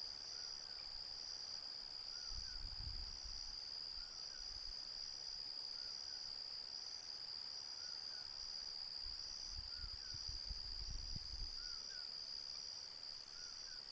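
Night insects, crickets or katydids, keeping up a steady high-pitched pulsing trill, with a faint two-note call repeating about once a second beneath it. Low rumbles come in about two seconds in and again around ten seconds in.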